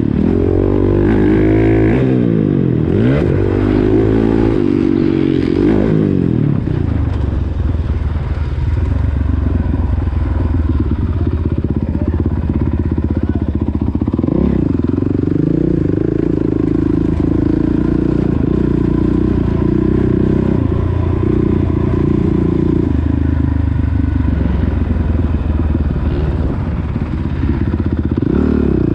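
Motocross dirt bike engine being ridden hard. For the first few seconds it revs up and down several times as the throttle is opened and closed, then it holds a steadier, higher note with a couple of brief dips.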